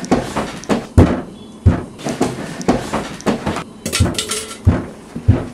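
Struggle on a bed: a string of sharp, irregular thumps and knocks, about three a second, with some clatter.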